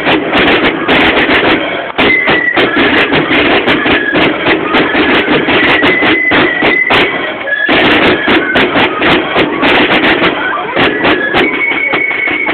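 Concertina band playing a tune: steady high held notes over many sharp beats throughout.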